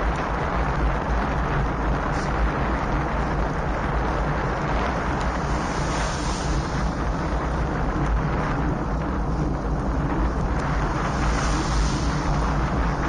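Steady wind rushing over an action camera's microphone during a ride, over a constant low rumble.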